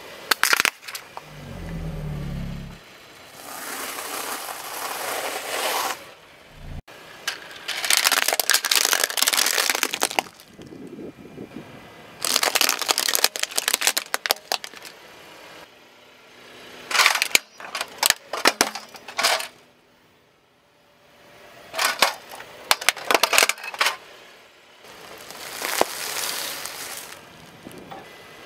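A car tyre rolling slowly over plastic toys on asphalt and crushing them: repeated bouts of crackling and crunching plastic with sharp cracks and snaps, separated by short pauses.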